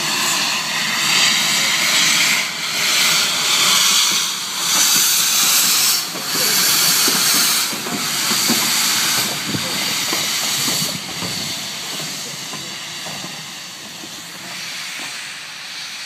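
SR U class 2-6-0 steam locomotive moving off slowly with its cylinder drain cocks open: loud steam hissing in repeated surges, with short low knocks from the wheels and motion as it passes. The hiss dies away over the last few seconds as the engine draws off.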